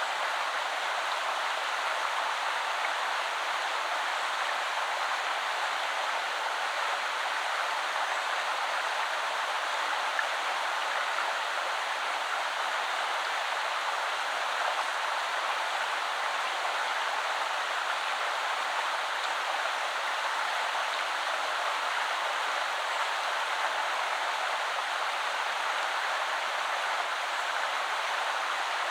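Shallow woodland river flowing and splashing over stones in a steady, even rush with no breaks.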